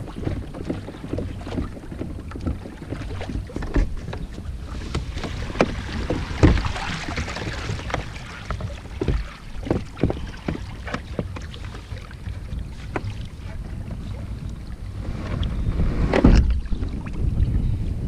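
Wind rumbling on the microphone on a kayak on open water, with scattered knocks and clunks, and a louder rush of noise near the end.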